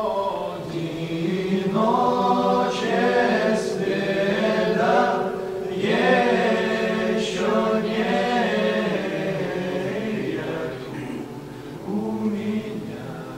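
A group of voices singing together in chorus, holding long notes in phrases of about two seconds, fading toward the end.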